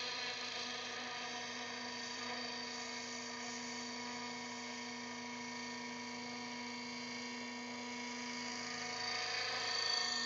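Align T-Rex 600 radio-controlled helicopter running at a steady pitch, its rotor and drive giving an even whine, as it lifts off and hovers. The sound grows louder near the end as the helicopter flies out.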